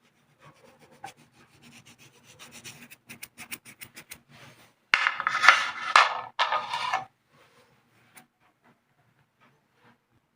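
A spoon scraping and stirring a sticky ginger-and-jaggery candy mixture on a plate. Light scrapes and taps build up, and a few louder, longer scrapes come a little past the middle before it goes quiet.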